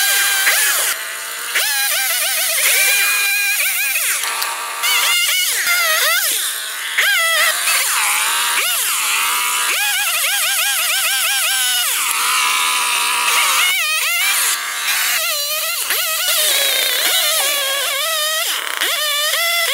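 Two-stroke petrol chainsaw cutting through walnut branches and logs. The engine revs up and drops back again and again as it is throttled into each cut, with short spells of steadier lower running between cuts.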